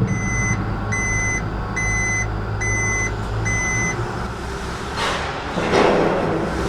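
A vehicle's reversing alarm beeps five times, evenly, under a steady low engine rumble; about five seconds in, a burst of rushing noise swells up.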